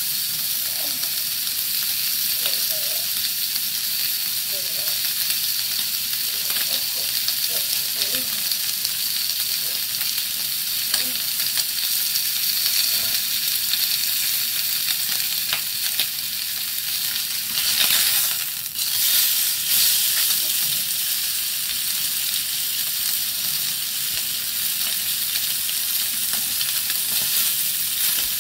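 Sirloin steak sizzling as it fries in a small metal camping pot, a steady hiss with light clicks of plastic tongs as the meat is moved. A brief louder surge of sizzling about eighteen seconds in.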